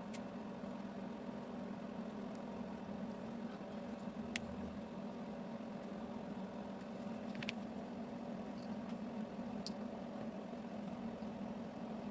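Plastic Lego bricks clicking as they are handled and pressed together: a few sharp, separate clicks, over a steady low background hum.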